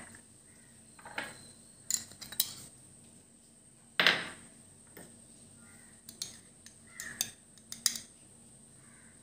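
Metal spoon clinking and tapping against steel dishes and a steel pot as powdered spices are spooned in. It is a scatter of short, separate clinks, the loudest about four seconds in.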